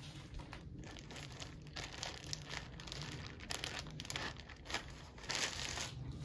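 Thin frosted plastic zip-top pouch crinkling and rustling in irregular bursts as small hands pull it open, louder about five seconds in.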